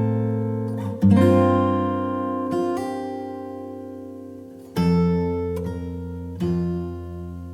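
Background music: acoustic guitar chords strummed and left to ring out. A chord is struck about a second in, another near five seconds, and a softer one shortly after; each fades slowly.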